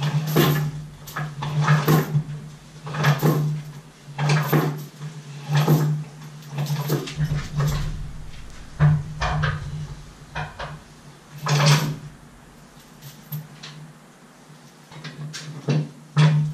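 Anchor chain clinking and rattling against the aluminum bow in repeated bursts as it is fed by hand through a chain guard, with a quieter stretch near the end.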